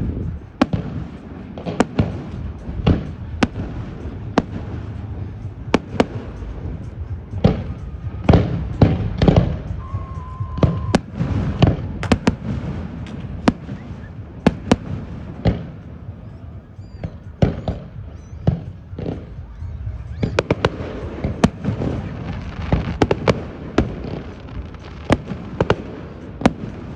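Fireworks display: aerial shells bursting in a rapid, irregular string of sharp bangs over a low rumble. The bangs come thicker from about twenty seconds in.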